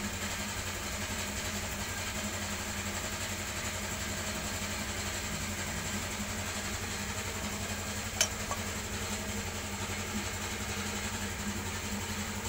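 A steady low mechanical hum, with one sharp click about eight seconds in.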